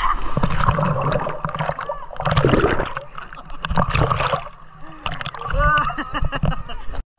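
Water splashing and churning as several people kick and thrash in shallow river water, the microphone dipping under the water for a moment partway through. A man's voice calls out briefly near the end.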